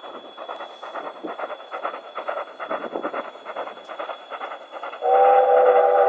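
Steam locomotive working toward the listener with a fast, even beat of exhaust chuffs. About five seconds in it sounds its steam whistle, a loud chord of several tones held steady.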